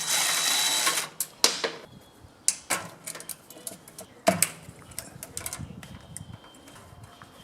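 A power drill-driver runs for about two seconds, taking out a fastener while the starter solenoid is removed from a small engine, followed by scattered sharp metallic clicks and clinks of tools and parts being handled.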